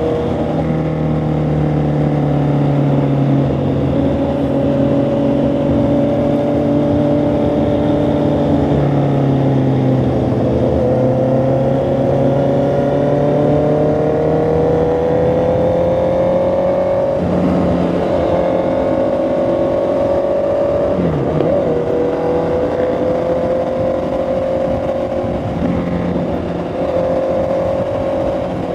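Honda CB650R's inline-four engine and exhaust under way at cruising pace, the pitch climbing gradually as the bike gathers speed, then changing with a gear shift about 17 seconds in and dipping briefly near 21 seconds.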